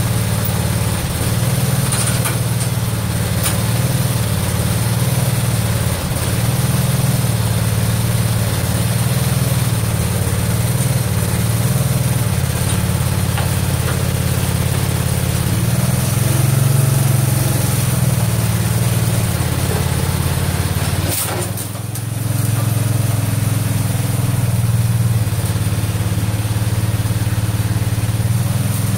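Craftsman garden tractor's engine running steadily while the front loader is worked, its level wavering slightly, with a brief dip and a click about three-quarters of the way through.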